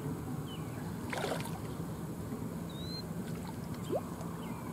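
A hooked carp splashing at the surface just off the bank, with one short splash about a second in. Under it runs a steady low hum, with a few faint high chirps.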